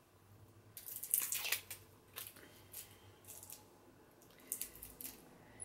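Packaging of a small eyeliner being handled and opened by hand: a burst of crackling rustle about a second in, then scattered small clicks and rustles.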